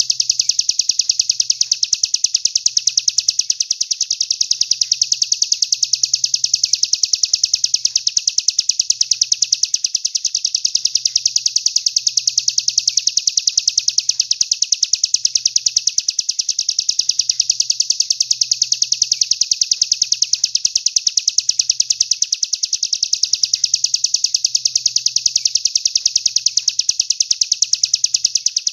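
Recorded songbird masteran song: a continuous, rapid, high-pitched trill of fast even notes that runs without a break.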